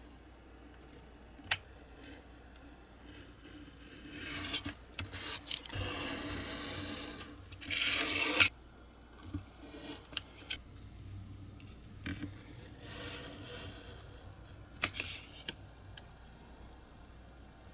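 Small hand-tool work at a workbench: intermittent scraping and rubbing. There is a sharp click about a second and a half in and another near the end, and the loudest stretch is a rasping scrape from about four to eight seconds in.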